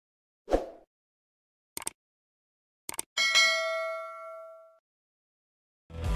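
Subscribe-button animation sound effects: a brief swish, two quick double clicks, then a notification bell ding that rings out and fades over about a second and a half. Guitar music comes in right at the end.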